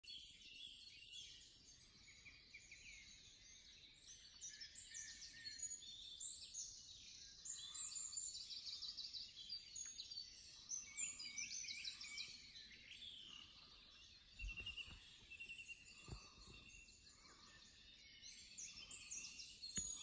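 Dawn chorus in woodland: several birds singing at once, with overlapping chirps, quick trills and song phrases. Two soft low thumps come about three-quarters of the way through.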